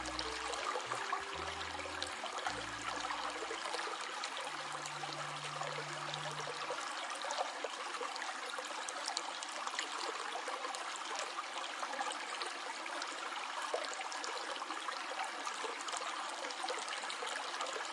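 A stream flowing steadily, an even rush of water. Low notes of background music play under it for the first few seconds, then stop.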